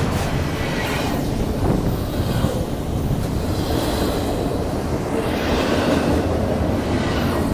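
Union Pacific double-stack intermodal freight train rolling past, its cars making a steady noise of wheels on rail.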